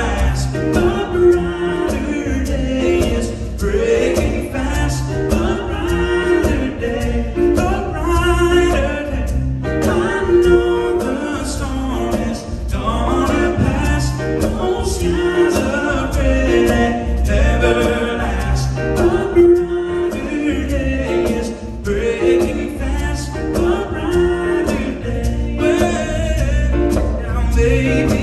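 Live acoustic music: two acoustic guitars with harmonica and singing, played continuously.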